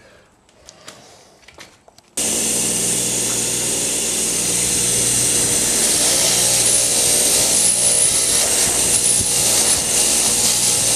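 Bench grinder with a wire wheel running with a steady motor hum, starting abruptly about two seconds in after a few faint handling clicks. The wheel is wire-brushing corrosion off a metal ATV intake-manifold flange, and it gets a little louder from about six seconds in.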